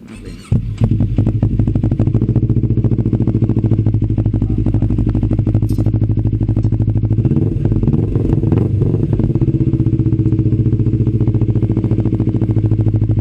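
CF Moto NK400 motorcycle's parallel-twin engine idling steadily through its exhaust muffler. The engine sound comes in about half a second in, and the revs rise slightly for a moment about halfway through.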